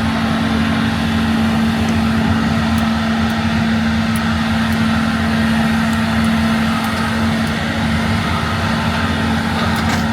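LiuGong 942F hydraulic excavator's diesel engine running steadily at working speed, with one constant humming note throughout.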